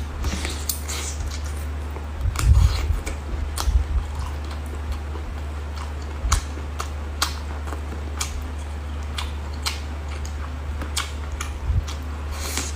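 Scattered light clicks and taps, with a few soft thumps a couple of seconds in, over a steady low hum.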